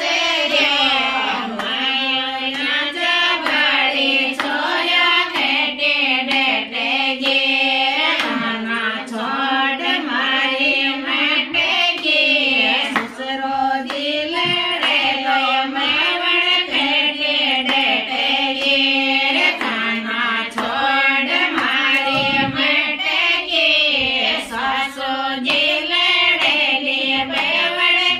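Women singing a Rajasthani folk wedding song (geet) together, a devotional song calling on the gods and goddesses. The melody runs on without a break.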